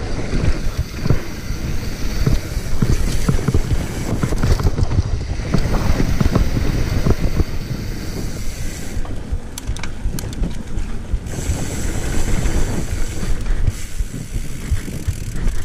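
Mountain bike riding fast down a dirt trail: wind rushing over the camera microphone, with tyres on the loose dirt and the bike's parts rattling and knocking over the bumps.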